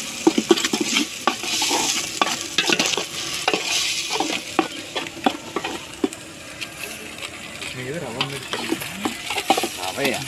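Steel ladle scraping and clinking against an aluminium pot as a mixture with curry leaves is stirred, with frying sizzling steadily underneath.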